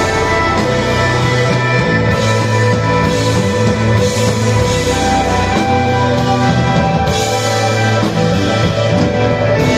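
Instrumental desert rock played live by a band: a bass guitar moving between low notes and an electric guitar holding long tones over drums and cymbals, with no singing.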